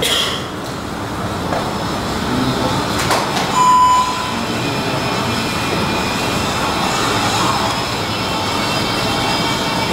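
Soundtrack of a promotional video played over loudspeakers: a steady rushing noise, with a short clear beep about four seconds in.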